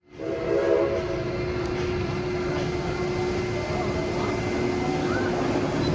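Calico Railroad narrow-gauge steam train: a steady hum over a low rumble, with a few higher tones briefly louder in the first second.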